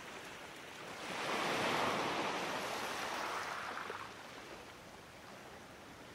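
A rush of outdoor noise swells about a second in and dies away by about four seconds, over a steady background hiss.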